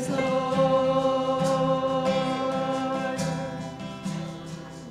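Congregation and worship leader singing a long held note of a worship song over steadily strummed guitar; the held note fades about three and a half seconds in.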